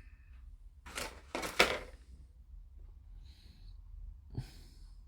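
Handling noises from a plastic model kit being worked on: two short clattering rustles about a second in, then a faint hiss and a light knock near the end.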